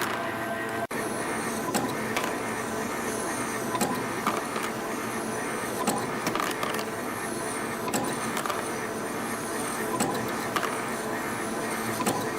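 YHM CF-320 CNC spring coiling machine running production of 0.8 mm wire compression springs: a steady mechanical whir with short falling high whines and sharp clicks, in pairs about every two seconds.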